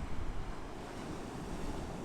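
North Sea surf washing on the beach with wind on the microphone: a steady rushing noise with some low rumble.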